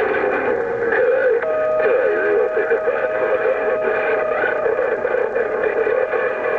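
CB radio receiver audio with skip on the 11-metre band: garbled, warbling transmissions from distant stations, with a steady heterodyne whistle coming in about a second and a half in.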